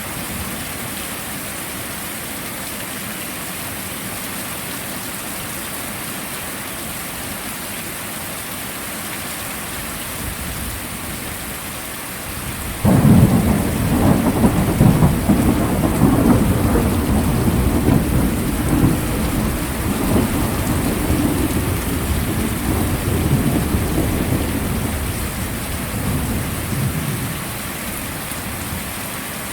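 Steady heavy rain, then a sudden clap of thunder about halfway through that rolls on as a long rumble, fading back into the rain after some fifteen seconds.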